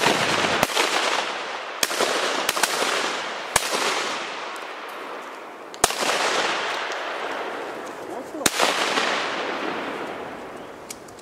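Shotgun volley from several duck hunters: about nine sharp shots at uneven spacing, a few in quick succession. A loud rushing noise swells after the shots and slowly fades.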